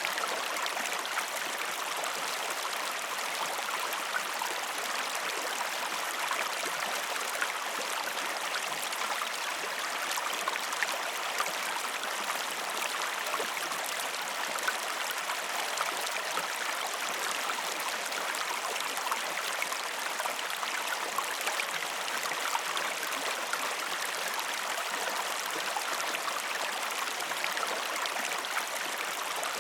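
Mountain stream cascading over rocks: a steady rush and splash of flowing water with small gurgles and spatters flickering through it. No birds or other sounds.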